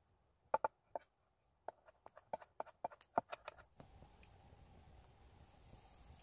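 Knife tapping on a wooden cutting board: a quick, irregular run of sharp taps. The taps stop a little before four seconds in, leaving a faint steady hiss with a few soft clicks.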